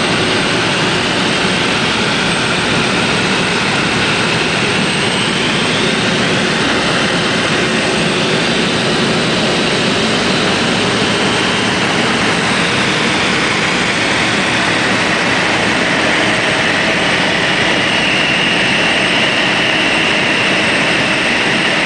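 Steady cabin noise of a light high-wing aircraft in flight: the engine and propeller drone mixed with rushing airflow, with a few faint high tones drifting slowly up and down in pitch.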